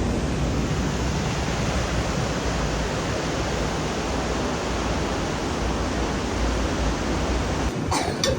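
Steady rushing noise of ocean surf and wind, with a heavy low rumble that drops away near the end, followed by two sharp clicks.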